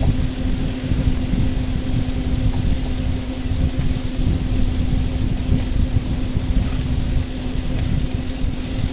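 A steady, fairly loud low machine hum with a constant rumble underneath, unbroken throughout.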